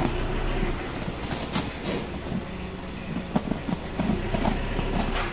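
Cardboard shipping box being cut and torn open by hand: irregular scraping, tearing and knocking of the cardboard.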